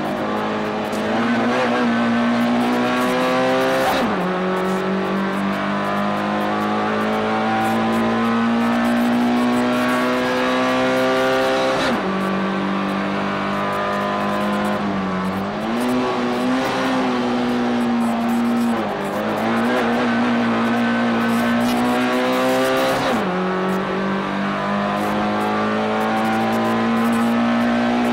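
Race car engine running hard at high revs, heard from inside the cabin. Its pitch drops sharply about four, twelve and twenty-three seconds in, each drop an upshift, and climbs slowly back as the car pulls in the next gear, with shorter dips and recoveries around fifteen and nineteen seconds.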